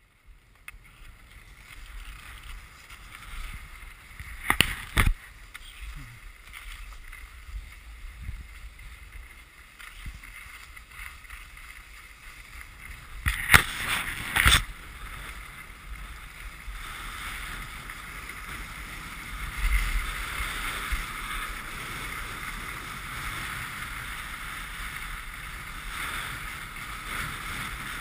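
Skis sliding and scraping over packed snow on a downhill run, a steady hiss that grows louder and rougher in the second half, with wind on the microphone. Two pairs of sharp knocks break in, one pair about four to five seconds in and another around thirteen to fourteen seconds.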